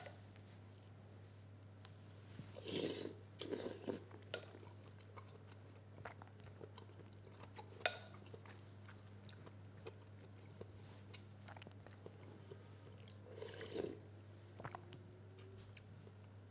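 A person eating soup from a ceramic soup spoon: quiet sips and chewing in a few short bursts, with a single light clink of the spoon on the bowl about halfway through.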